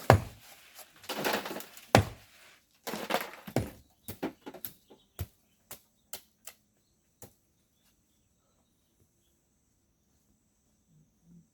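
Hand tools working volcanic sand and stone: a few loud scraping strokes, then scattered sharp knocks that thin out and stop after about seven seconds.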